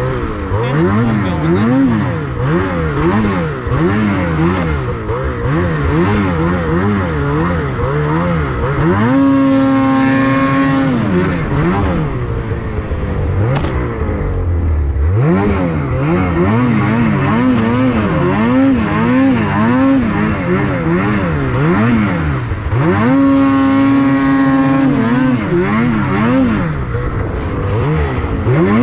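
Snowmobile engine revving up and down in quick, repeated blips of the throttle while riding through trees in snow. Twice the revs are held high and steady for about two seconds before dropping back.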